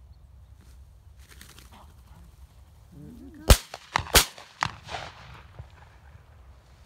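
Two shotgun shots at a flushed bird, about 0.7 s apart, each followed by a fainter crack. A short wavering call comes just before the first shot.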